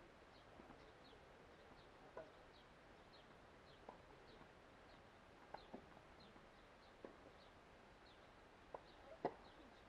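Near-silent outdoor ambience of birds chirping faintly and repeatedly, with a few sharp knocks of a tennis ball on the hard court, the loudest about nine seconds in.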